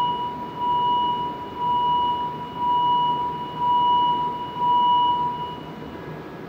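Door-closing warning chime of a Montréal Métro Azur train: a high tone pulsing about once a second, six times. It signals that the doors are about to close.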